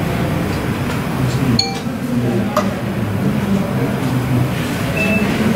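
Indistinct background talk of several people in a room, low men's voices murmuring without clear words, with a couple of brief clicks about two seconds in.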